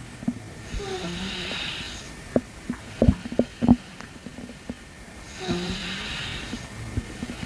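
Stomach gurgles heard close up: a run of short pops and squelches in the middle, between two long breaths about four seconds apart.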